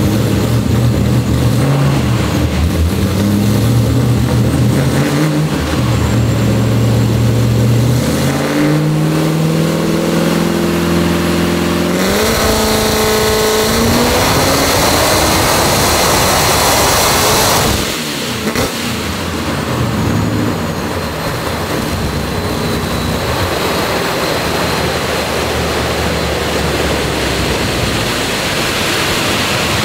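Supercharged 6.2 L LS V8 on a hub dyno, run up through the gears in a few steps and then held at full throttle. It pulls for about six seconds with a rising pitch and cuts off sharply near the middle, then keeps running lower as it winds down.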